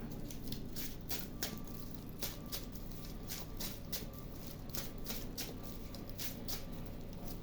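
Tarot cards being handled: a run of irregular soft flicks and taps as cards are shuffled and laid down.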